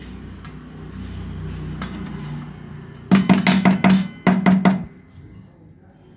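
Wooden spatula stirring and scraping a dry khoya and semolina mixture in a nonstick frying pan, then knocking sharply against the ringing pan about eight times in quick succession, five knocks and then three, a little over three seconds in.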